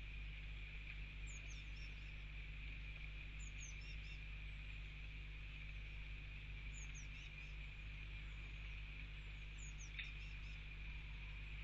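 A small songbird's short runs of high, thin, falling calls, four times about every three seconds, over a steady low hum, with a single sharp tick about ten seconds in.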